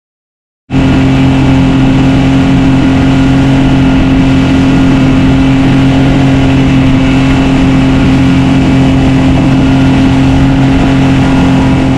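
Boat's outboard motor running at a steady speed, loud and even in pitch, cutting in abruptly under a second in.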